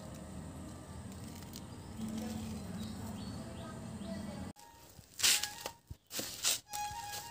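Steady outdoor background noise with a few faint chirps. About four and a half seconds in it cuts off abruptly and background music with sharp percussive hits and short held notes begins.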